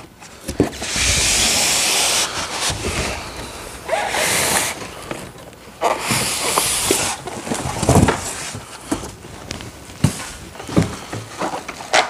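Cardboard and plastic packaging scraping and rustling in three loud stretches as an upright vacuum is pulled out of its box, followed by a few knocks.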